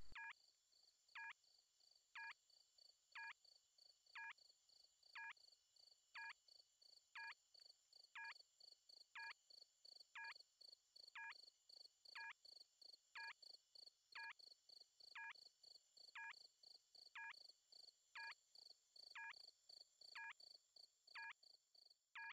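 Faint night ambience of chirping crickets. One chirp repeats about once a second over quicker, higher chirping and a steady high whine.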